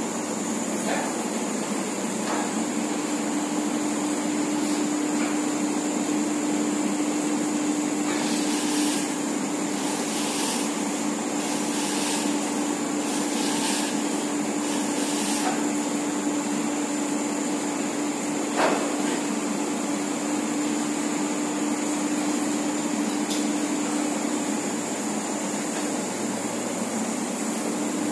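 Steady running hum of a big bag filling line's roller conveyors and pallet-handling machinery, with a constant tone under it. A run of short high-pitched surges comes about once a second in the middle, and a single sharp knock comes about two-thirds of the way through.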